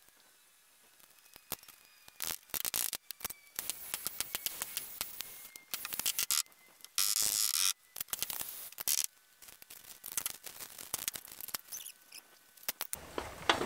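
Thin sheet-metal Z flashing scraping and clicking as it is worked by hand into the horizontal joint behind wood siding, in a broken run of short scrapes with one longer high scrape about seven seconds in.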